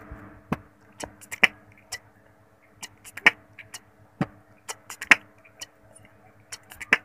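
Intro sound effects: a string of sharp clicks and knocks at uneven intervals over a faint steady hum.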